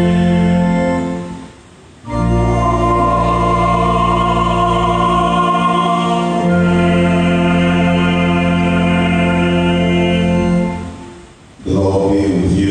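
Organ playing long held chords. A chord fades out about a second in, a new chord enters about two seconds in and changes partway through, and it dies away about eleven seconds in.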